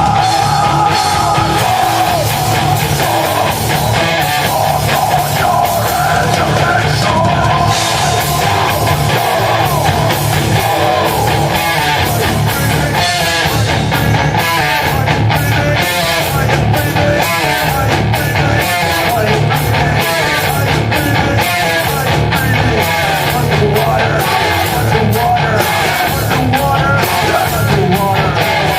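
Loud live heavy rock band playing, with guitar and a steady drum beat under sung and shouted vocals.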